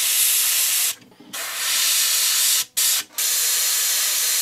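Airbrush spraying paint: a steady hiss of air and paint, cut by short pauses about a second in and again around three seconds in.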